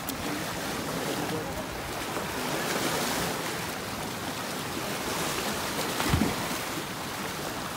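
Steady rush of moving water, swelling a little about three seconds in and again about five seconds in, with a short low thump about six seconds in.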